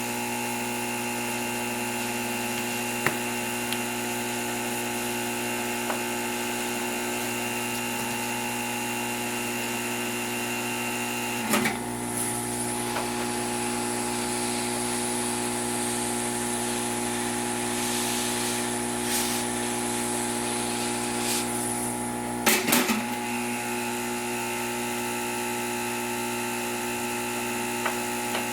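Hot air tool's blower running steadily, a motor hum and whine. Short knocks about twelve and twenty-three seconds in, with a faint high whine added between them.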